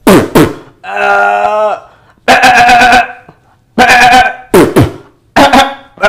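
A man's voice mimicking a billy goat bleating: about six loud, drawn-out bleats with short gaps between them, two of which slide steeply down in pitch.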